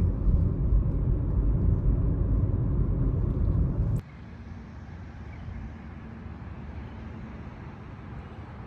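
Loud, steady low rumble of a vehicle on the move, like road noise inside a car. About four seconds in it cuts off abruptly to a much quieter steady hum.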